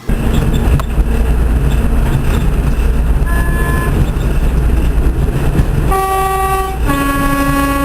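Locomotive horn sounding over a steady low rumble: a short toot about three seconds in, then a higher note and a longer, lower note near the end.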